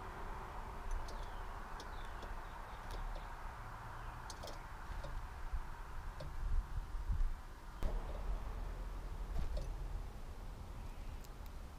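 Birds at a feeder: scattered short clicks and taps with a few faint, brief chirps, over a low rumble that swells about two-thirds of the way through.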